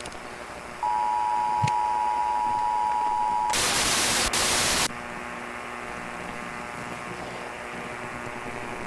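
Emergency Alert System–style two-tone attention signal held steady for about three seconds. It is cut off by a loud blast of TV static, which after about a second and a half drops to a quieter, steady static hiss with a low hum.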